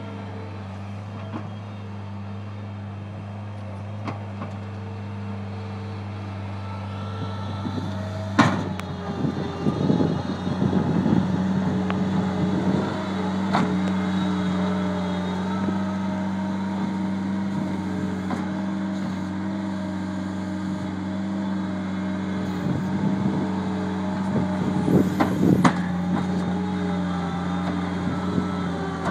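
The 46-horsepower diesel engine of a New Holland LS160 skid steer running steadily, its engine speed rising and growing louder about eight to eleven seconds in. A few sharp metallic clanks sound over it, the loudest about eight seconds in.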